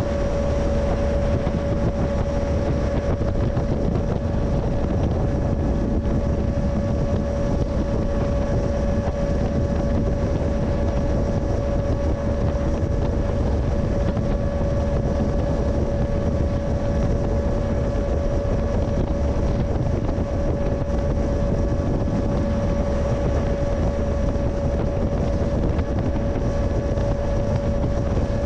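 Freight train running steadily, heard from a camera mounted on the train: an even low rumble with a constant steady whine over it, and wind buffeting the microphone.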